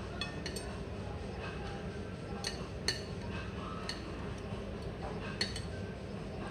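A metal knife and fork clinking and scraping against a ceramic plate, with a handful of sharp clinks, the clearest about three seconds in, over a steady low room hum.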